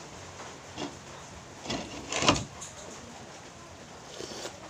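Spoon knocking and scraping against a plate while eating rice: a few short knocks, the loudest and heaviest about two seconds in.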